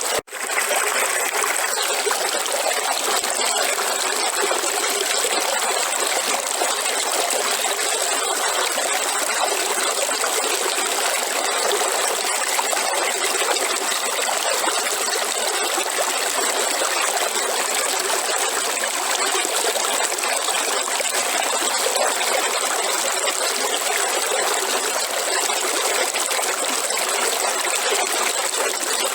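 River water flowing with a steady rushing hiss. It cuts out for an instant just after the start.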